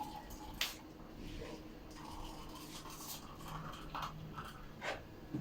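Quiet room tone with a few faint clicks and light taps of cutlery on a plate.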